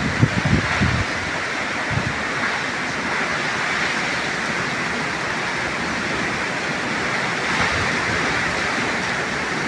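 Heavy cyclone rain pouring steadily onto trees and foliage, with a constant hiss. Wind buffets the microphone with low rumbles in the first second and once more about two seconds in.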